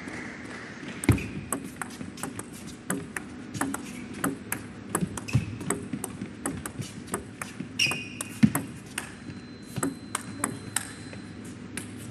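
Table tennis ball struck back and forth in a long rally, the paddle hits and table bounces clicking a few times a second.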